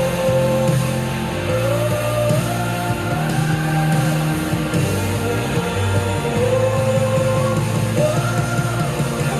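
Worship band music playing steadily: sustained bass notes under a slow, gliding sung melody.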